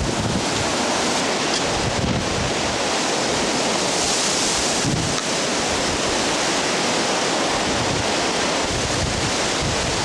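Hurricane-force wind blowing through trees and buffeting the microphone in a steady roar, with a stronger, hissier gust about four seconds in.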